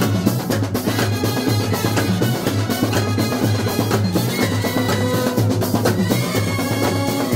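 Kerala bandset brass band playing live: bass drums and snare drums beating a dense, steady rhythm, with trumpets holding notes over it.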